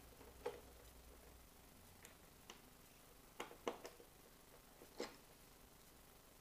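A handful of faint metallic clicks and taps, about six spread over several seconds against near silence: a hand Torx key working the Torx 25 screws out of the headlight surround.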